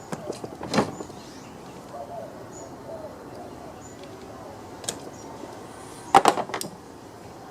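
Sharp clicks and knocks of a hand tool against chainsaw parts while an oil hose is worked onto the auto-oiler pump: a few just under a second in, and a louder cluster about six seconds in. Doves coo faintly in the background.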